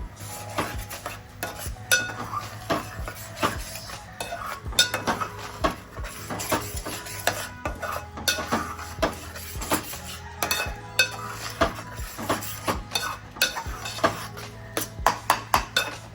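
A metal spoon stirring and scraping a thick masala paste in a cooking pan, with irregular clinks against the pan, over a steady low hum.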